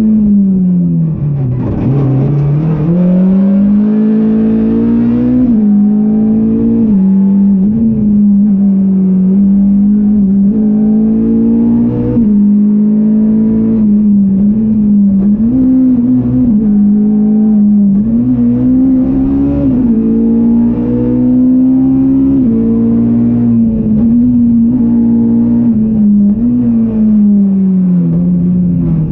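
Ford Fiesta R200 rally car's engine heard from inside the cabin at racing pace, revs held high with brief dips and climbs in pitch. About two seconds in the revs drop sharply and climb back, and over the last couple of seconds they fall away.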